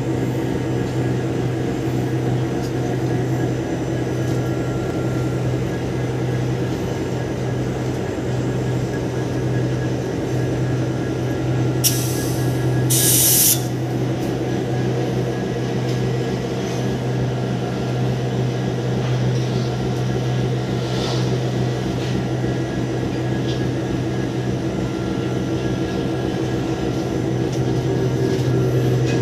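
Diesel locomotive engine running steadily, a constant low drone heard inside the cab. About twelve and thirteen seconds in come two short bursts of hissing.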